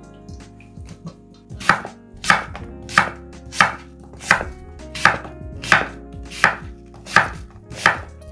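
Kitchen knife slicing food on a cutting board: about ten even, deliberate cuts, roughly one every 0.7 seconds, starting a second and a half in.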